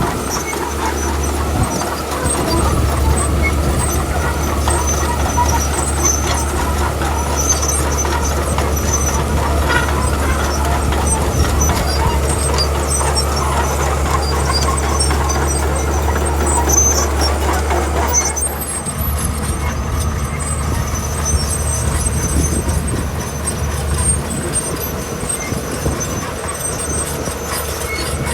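Heavy diesel earthmoving machinery running steadily under load, with a strong low engine drone; the sound shifts about two-thirds of the way through.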